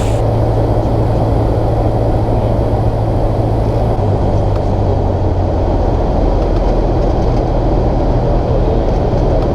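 Cessna 150's engine and propeller droning steadily in flight, heard inside the cabin with a muffled, low-heavy sound.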